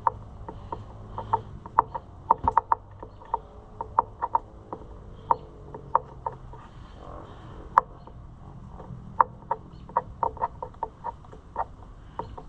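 Hand tool tightening the clamps on a Kawasaki KLX140 dirt bike: a run of sharp, irregular metal clicks and ticks, some in quick clusters, over a low steady hum.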